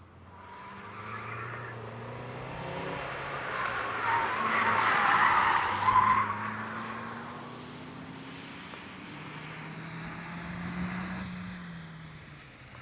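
Hatchback car driven hard around a tarmac track. The engine revs and the tyres squeal through a corner, loudest about five to six seconds in, then the engine pulls away.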